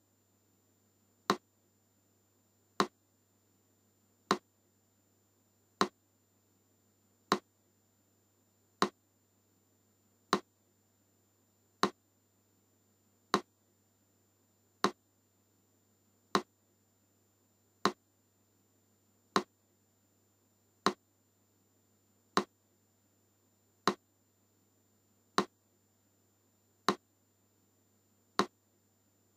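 Metronome ticking slowly and evenly, one sharp click about every one and a half seconds.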